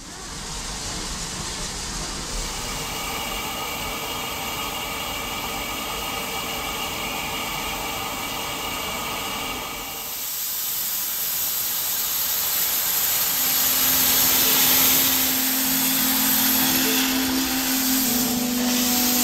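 Saddle-tank steam locomotive standing with steam hissing. The hiss grows louder and brighter from about halfway, as steam blows from around the cylinder. Steady low notes join in the last few seconds.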